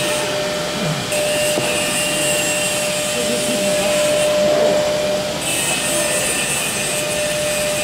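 Vacuum pump of an automatic vacuum membrane press running steadily, pulling the film down onto the press tray. It makes a continuous rushing noise with a steady tone running through it.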